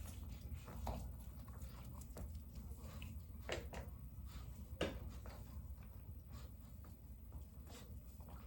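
Small dogs moving about on the floor: faint, scattered clicks and taps over a low room rumble.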